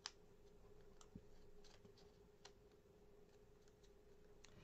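Near silence: a few faint clicks and light taps of paper pieces being handled and pressed into place on a card, over a low steady hum.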